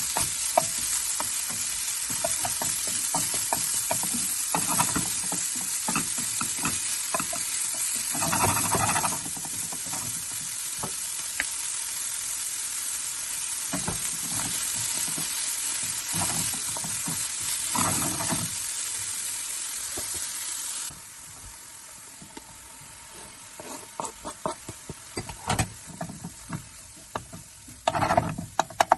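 Food sizzling in a hot frying pan while a spoon stirs it, knocking and scraping against the pan. The sizzle drops away abruptly about three-quarters of the way through, leaving only scattered spoon knocks and scrapes, with a louder clatter near the end.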